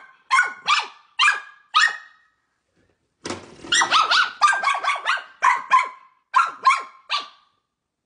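Small dog barking in short, high barks. Four come spaced out, then after a pause of about a second a quicker string of a dozen or so follows, stopping shortly before the end.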